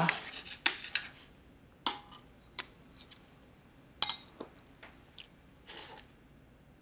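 Eating sounds: chopsticks tapping and clicking against a bowl several times at uneven intervals, and a short slurp of soup near the end.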